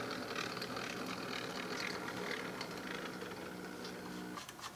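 N scale model Shay locomotive running along the track: a steady electric motor hum with a light rattle of wheels on rail. The hum cuts off shortly before the end as the train stops.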